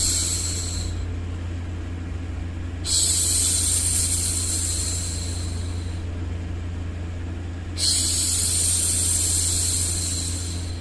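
A woman's long hushing 'shhh' for soothing a baby, repeated about every five seconds, each hiss lasting around three seconds and fading away. A steady low background noise runs beneath it.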